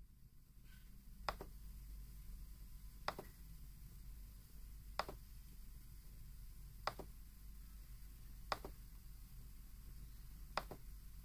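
Faint, sharp single clicks about every two seconds, six in all, the last one doubled, over a low steady hum.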